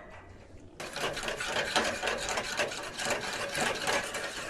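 Butter sizzling and crackling in a pan on a grill burner as it browns into brown butter. The dense crackle starts suddenly nearly a second in.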